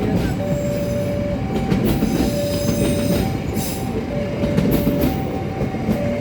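A train running past on the rails: a steady rumble with wheel clatter and a high wheel squeal, over a thin two-note tone that alternates about once a second.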